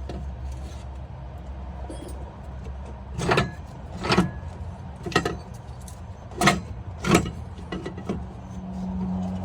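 Sharp metallic knocks and clinks, about five of them spread over a few seconds, as parts and tools are handled in an engine bay during an alternator refit, over a steady low hum.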